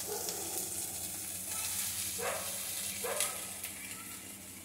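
Mustard oil sizzling in a kadai as small fried mourola fish are lifted out with a slotted spatula. Two short, louder sounds stand out about two and three seconds in.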